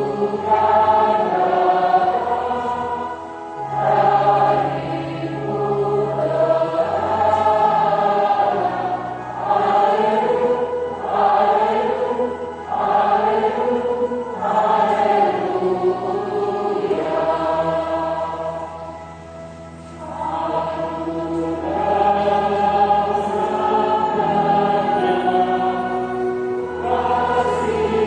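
A church choir and congregation singing a hymn together, over steady low held notes that change step by step. The singing softens briefly about two-thirds of the way through, then swells again.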